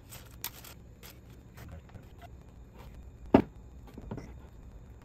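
Metal cylinder parts and rubber seals being handled on a workbench: scattered light clicks and rustles, with one dull knock a little over three seconds in and a smaller one just after, as a heavy part is set on the bench.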